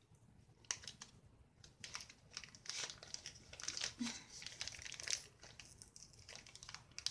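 Faint crinkling and tearing of gift wrapping as a glued-down fabric ribbon is peeled off it by hand, a run of small irregular crackles.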